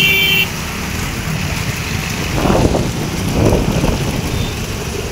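Heavy wind buffeting the microphone on a moving motorcycle, a dense low rumble with road and engine noise under it, swelling twice near the middle.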